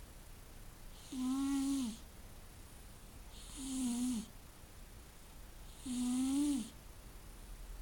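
Snoring: three long snores about two and a half seconds apart, starting about a second in. Each is a steady low buzzing note with a breathy hiss that dips in pitch as it ends.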